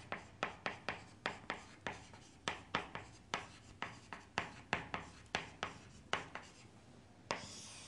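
Chalk writing on a chalkboard: a quick run of short taps and scratches as the letters are formed, about three to four a second, then one longer scraping stroke near the end.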